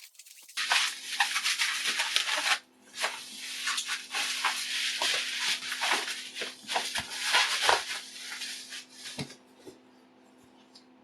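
Bubble wrap and plastic packaging being pulled apart and crumpled by hand: dense crinkling and rustling with many small crackles, breaking off briefly near the start and stopping about nine seconds in.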